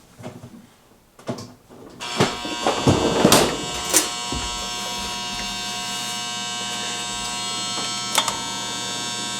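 Refrigerator compressor switching on: a few clicks, then a steady electrical buzzing hum from about two seconds in as the compressor runs. It draws about 9 amps in a fridge that is not cooling and clicks, where the start relay is suspected of overloading.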